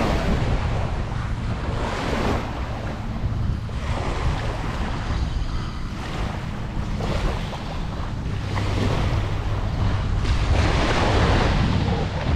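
Small waves washing up onto a sandy beach, swelling and fading every few seconds, with wind rumbling on the microphone.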